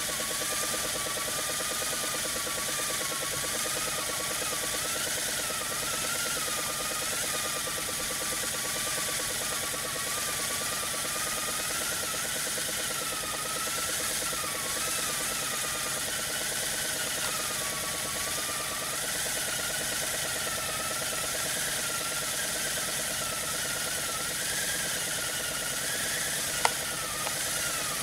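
A brass Hero's steam engine (aeolipile) spinning fast on its pivots: steam hissing from its copper jets, with a wavering whistle and a steady fast buzz. One sharp click about a second before the end.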